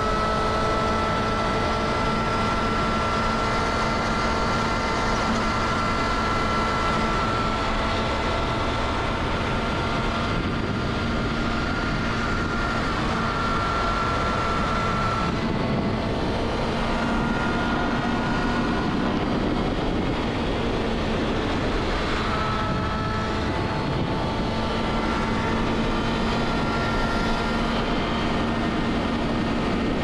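Kawasaki Ninja ZX-6R's 636 cc inline-four engine pulling steadily at cruising speed, its note holding with only small shifts in pitch, over a rush of wind and road noise.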